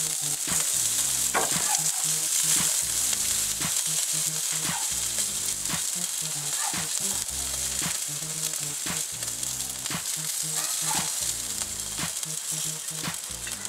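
Food sizzling steadily on a charcoal grill: a constant high hiss as the burgers cook.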